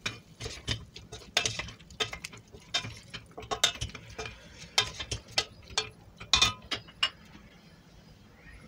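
Wooden spoon stirring diced chicken and chopped peppers in a stainless steel pot, with irregular clacks and scrapes of the spoon against the pot. The stirring stops about seven seconds in.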